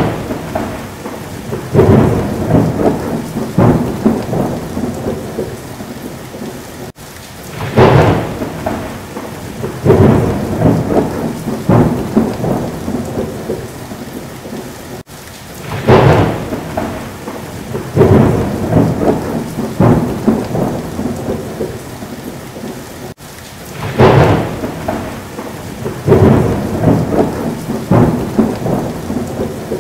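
Thunderstorm: rain falling steadily, with a sharp thunderclap followed by several seconds of rolling rumbles. The same stretch of storm repeats about every eight seconds, as a looped recording.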